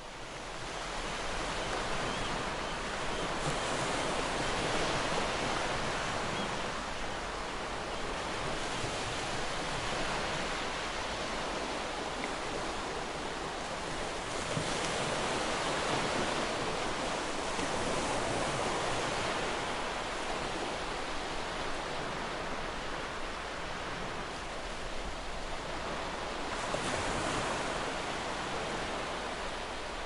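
Ocean waves: a steady rush of surf that swells and eases every few seconds, fading in during the first second.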